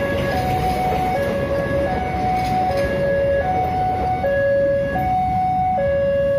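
Railway level-crossing warning alarm sounding, an electronic two-tone signal switching between a lower and a higher tone about every 0.8 seconds, over the noise of a train's cars rolling past on the rails.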